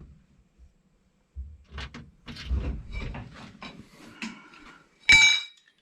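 Metal tools or parts being handled and knocked about, a run of small knocks and rattles, then a sharp ringing metallic clink near the end.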